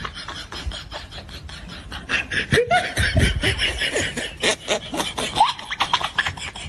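Laughter in quick repeated bursts, getting louder about two seconds in, and cutting off suddenly at the end.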